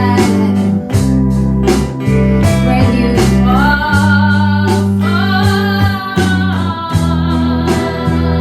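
A song with guitar and a singing voice over a steady bass line and regular drum hits; about halfway through, the voice holds long wavering notes.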